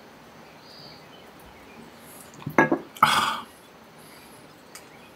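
A beer can being cracked open about two and a half seconds in: a quick cluster of clicks from the pull tab, then a short, loud hiss of escaping gas lasting about half a second.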